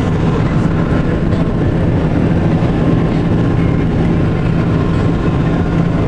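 A vehicle driving along a sealed highway, heard from on board: a steady low engine drone with tyre and wind noise.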